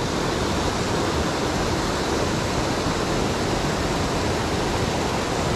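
Rushing mountain stream: a steady wash of water running over rocks and spilling down small cascades.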